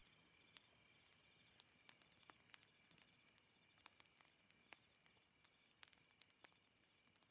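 Near silence: a faint background ambience with scattered soft clicks over a faint steady high tone, slowly fading.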